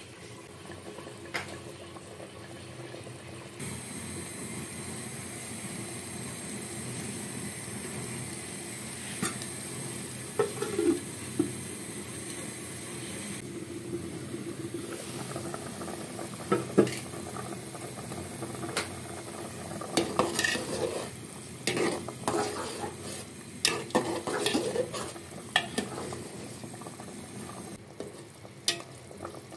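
Metal spoon stirring beef curry in a metal pot, clinking and scraping against the sides over the steady sizzle of the cooking sauce. The spoon knocks come most often in the second half.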